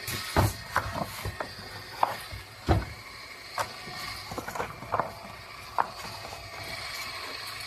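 Tarpaulin welding machine running steadily, with irregular knocks and clicks from the machine and the material being handled, most of them in the first six seconds.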